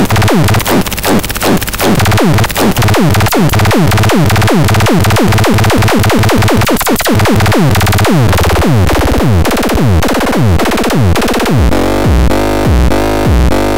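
X33 groovebox playing an electronic pattern: rapid, repeated falling-pitch synth sweeps over a drum-machine beat. Around eleven seconds in the sweeps give way to a steady pulsing bass pattern.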